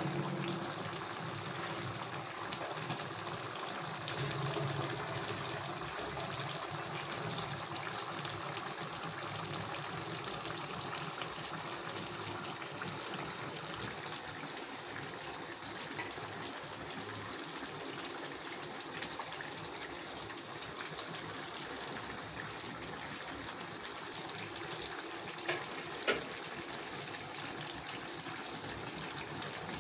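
Chepa shutki and vegetable curry simmering in a pot on a gas stove: a steady bubbling hiss. Near the end, a couple of short clinks of a metal spoon against the pot.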